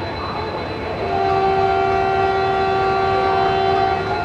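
A train horn sounds one steady blast of about three seconds, starting about a second in and cutting off near the end.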